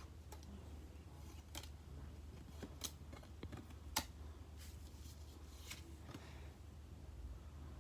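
Pokémon trading cards being handled and flicked through, with faint rustling and scattered light clicks and snaps; the sharpest snap comes about four seconds in. A low steady hum runs underneath.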